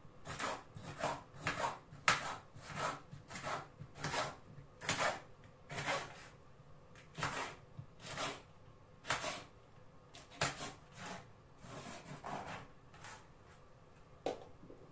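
Kitchen knife chopping sweet pepper on a cutting board, in a run of uneven strokes about two a second.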